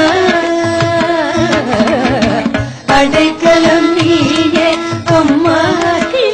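Carnatic devotional music between sung lines: a steady drone under a wavering, ornamented melody line, with hand-drum strokes keeping the rhythm. The music dips briefly about three seconds in.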